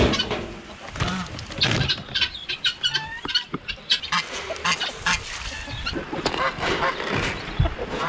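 A flock of chickens calling: a busy mix of short squawks and clucks from several birds at once.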